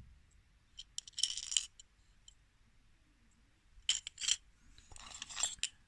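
Coins clinking against one another as they are picked over and handled, in three short bursts of clinks.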